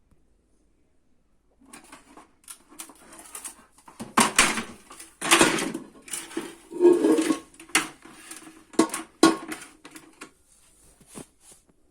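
Hard plastic parts of a washing machine's door handle assembly being handled, clicking, knocking and rattling. Several sharper knocks come in the middle, and the clicks die away near the end.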